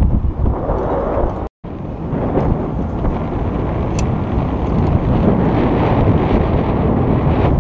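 Wind buffeting the microphone: a loud, steady rushing rumble, cut by a brief silent gap about a second and a half in.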